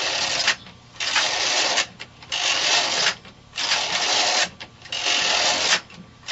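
Bond knitting machine's carriage pushed back and forth across the plastic needle bed, knitting row after row: a rattling swish just under a second long for each pass, five passes with short pauses between.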